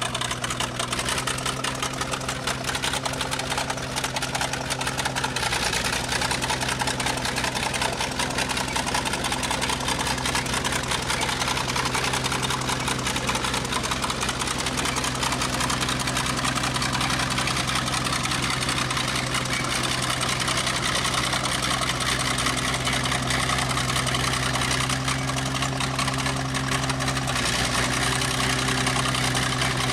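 Bulldozer's diesel engine running steadily, its note shifting slightly about five seconds in and again near the end.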